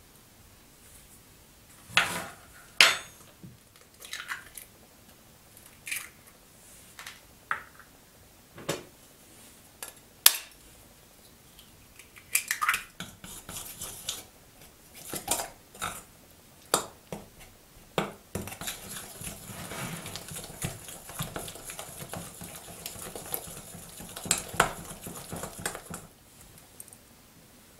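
Metal spoon and fork clinking and scraping against a glass mixing bowl as pancake batter is made. First come a series of separate taps and clinks, then about seven seconds of continuous fork whisking against the glass as the batter is mixed, stopping near the end.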